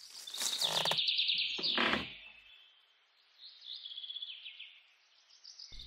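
Bird chirping in short, rapid trilled chirps: a louder run of them, then a quieter one about three and a half seconds in.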